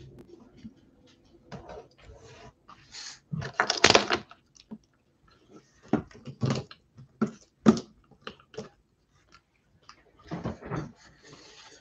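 Handling noise at a tabletop: scattered rustles, taps and knocks of objects being moved by hand. The loudest rustle comes about four seconds in, with a run of sharp knocks a few seconds later and more rustling near the end.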